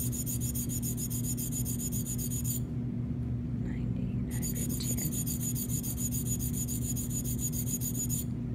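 Flat sharpening stone drawn in quick, even strokes against the steel cutting edge of a Gracey 1-2 curette, a fine rasping scrape, honing the blade's low cutting edge. The strokes pause for about a second and a half near the middle, then resume.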